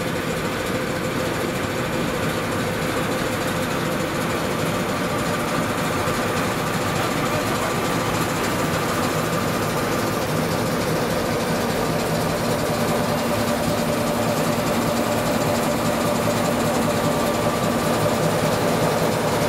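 A stationary locomotive running its machinery with a steady mechanical hum and a few steady tones, growing slightly louder toward the end.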